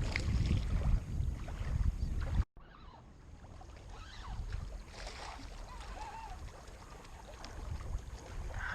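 Wind buffeting the microphone with a low rumble, which stops abruptly about two and a half seconds in; after that, a quieter, steady outdoor wind ambience.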